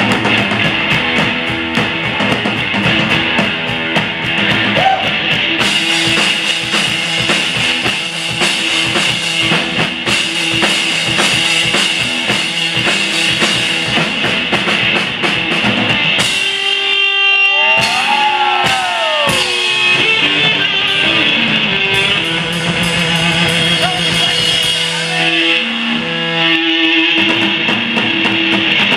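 Live rock duo playing loud: a semi-hollow electric guitar over a pounding drum kit. About sixteen seconds in the drums drop away for a few seconds while the guitar bends notes on its own, then the full band comes back in.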